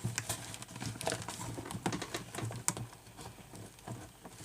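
Irregular light clicks and rustles of a cardboard toy box being handled while small wire cutters snip the plastic tags holding the contents in.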